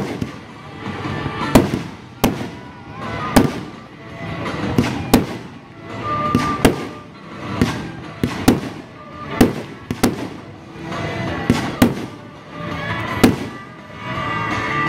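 Fireworks display: aerial shells bursting in quick succession, about one sharp bang a second, over continuous crackling and rumble.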